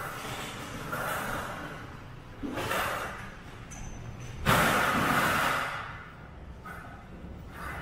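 Underground train station ambience: a steady low rumble with three whooshing surges of noise, the loudest about halfway through and lasting about a second.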